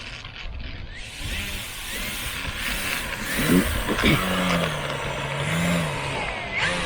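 Radio-controlled model airplane flying close by, its motor and propeller noise growing louder over the first few seconds, with the pitch rising and falling as the throttle changes.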